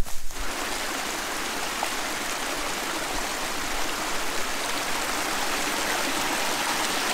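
Small forest brook splashing down over mossy rocks in little cascades: a steady rushing and splashing of water, heard close up.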